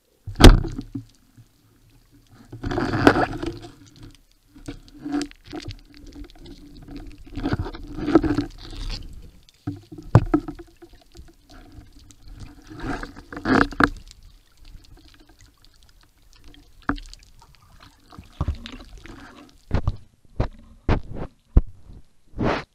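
Underwater water noise: a sharp knock about half a second in, then swells of rushing and bubbling water every few seconds, and a run of knocks and clicks near the end.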